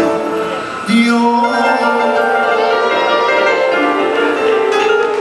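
Live gospel music from the band, with long held chords.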